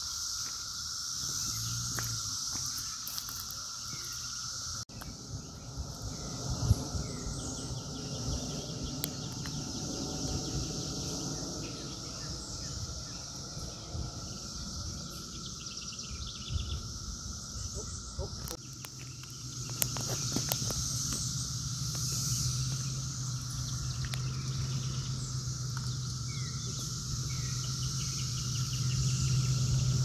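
Chorus of 13-year periodical cicadas: a steady drone holding one pitch, with a steady higher hiss above it and a few sharp clicks.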